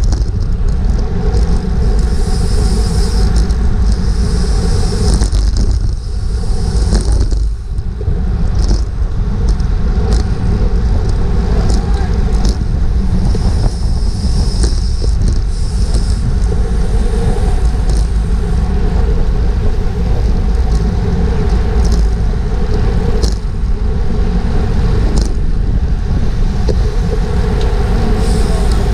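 Steady wind noise buffeting a GoPro's microphone on a racing bicycle at speed, with tyre and drivetrain noise underneath. The noise eases briefly about seven seconds in, and there are a few short clicks.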